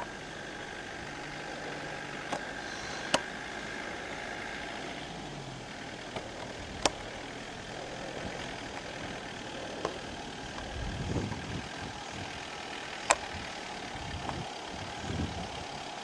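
Land Rover Defender engine running at low revs as the vehicle crawls slowly up a rutted dirt lane. A few sharp clicks are heard, the clearest about three, seven and thirteen seconds in. Low rumbling swells come near the end.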